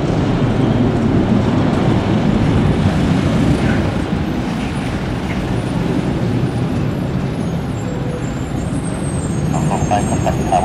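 Boeing 737-300 jet engines running with a steady deep roar, with a thin high whine coming in over it near the end.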